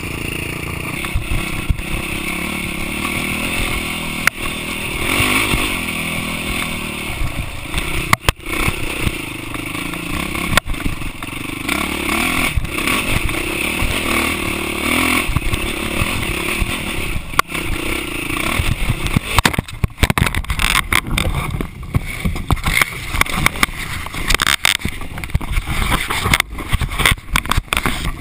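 Trail bike engine running under way, heard through a bike-mounted camera with wind rushing over the microphone. From about two-thirds of the way in, the sound turns choppy with knocks and rattles as the bike crosses rough, rocky ground.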